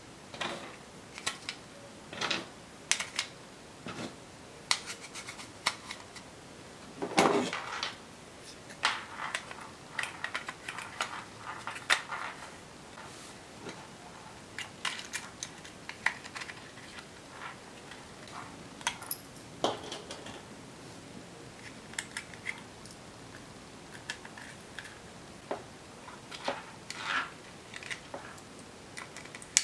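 Small plastic parts and a circuit board being handled and fitted into a plastic case on a hard tabletop: scattered irregular clicks, taps and light scrapes, with a louder clatter about seven seconds in.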